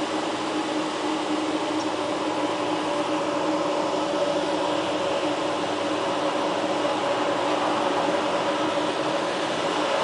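A Clear Channel digital billboard's cooling fan running steadily: a constant rush of air with a steady low hum at two pitches.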